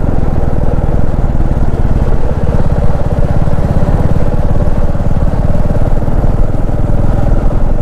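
Motorcycle engine running steadily as the bike is ridden along the road, heard from the rider's seat: a loud, even, low pulsing drone throughout.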